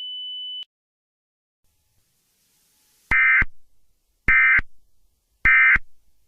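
A steady high electronic tone cuts off just under a second in. After a silence, three short buzzy data bursts follow about a second apart: the Emergency Alert System's end-of-message (EOM) SAME data signal closing the alert.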